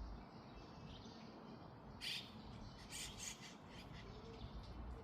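Bird chirping: one short, sharp call about two seconds in, then a quick run of several chirps about a second later, with fainter chirps between.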